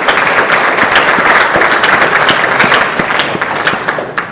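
Audience applauding: dense clapping that dies down near the end.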